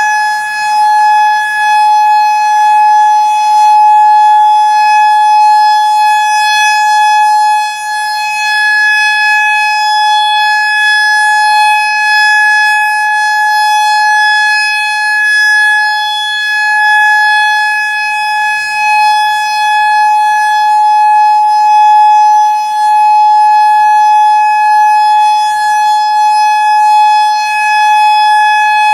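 Federal Signal EOWS 612 electronic outdoor warning siren sounding its Alert signal: one loud, steady tone held without rising or falling, with the level swelling and dipping slightly.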